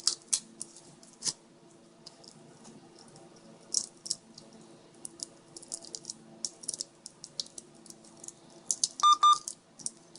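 Small clicks, taps and light rattles of screws and plastic housing parts being handled during GPS reassembly. Near the end, two short electronic beeps in quick succession are the loudest sound.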